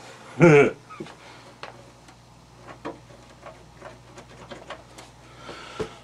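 A brief murmured vocal sound, then scattered small clicks and knocks as computer hardware and its cables are handled, over a faint low steady hum.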